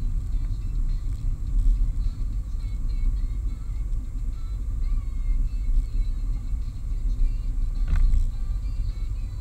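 Steady low rumble of a car driving on a road, heard from inside the cabin, with one brief knock near the end.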